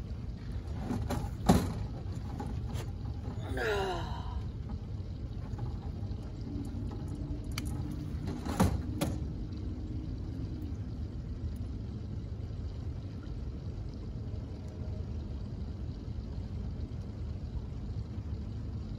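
Steady low wind and water noise around a small fishing boat while a limb line is pulled in by hand. There are two sharp knocks, about a second and a half in and near nine seconds, and a short falling sound around four seconds in.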